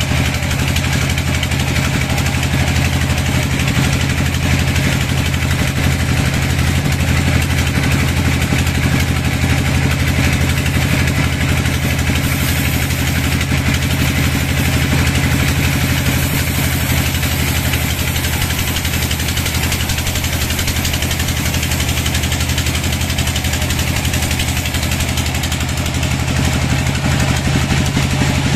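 Band sawmill running as its vertical band blade cuts lengthwise through a crooked log: a steady, unchanging low drone under an even hiss from the cut.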